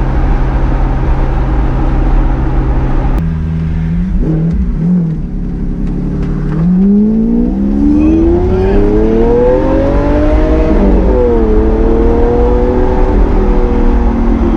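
Lamborghini Aventador's V12 engine accelerating: its note climbs steadily in pitch for about four seconds, drops quickly as it shifts up a gear, then holds steady.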